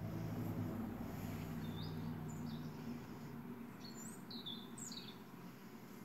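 Several short, high chirps of small songbirds played back from a bird video on a computer, over a low steady hum.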